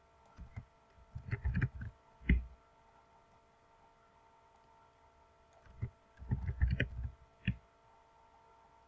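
Computer keyboard keys clicking in two short bursts of typing, each about a second and a half long, with a few single clicks around them.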